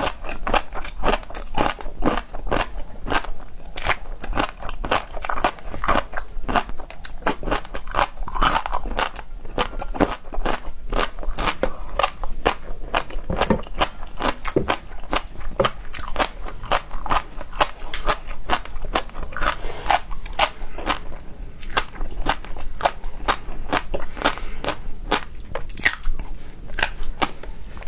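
Close-miked eating of seafood: continuous chewing and crunching, a dense run of crisp clicks and smacks with no pauses.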